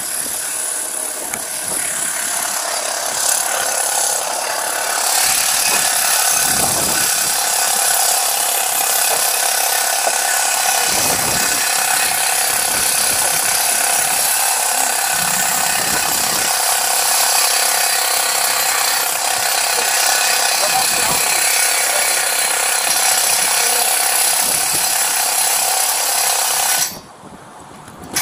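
Steady, loud rushing hiss of wind blowing across a body-worn camera's microphone, mostly high-pitched with little low end, with a few faint low gusts. The sound cuts out briefly about a second before the end.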